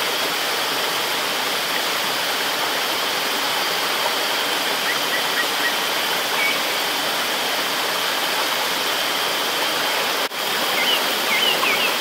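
Shallow rocky stream rushing over and between boulders: a steady, even rush of water, with a momentary dip about ten seconds in.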